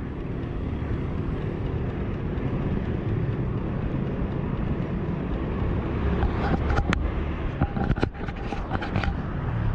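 Steady low rumble of riding noise picked up by a handlebar-height action camera as a mountain bike rolls along a wet paved road. A few sharp knocks and rubbing sounds come in the last few seconds as the camera is handled.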